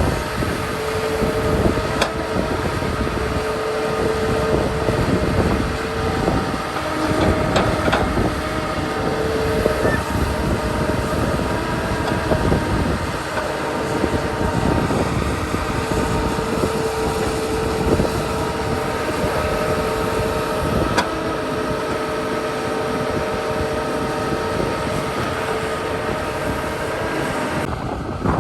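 Heavy earthmoving machinery running steadily: diesel engines with a steady whine, and a few sharp clanks now and then.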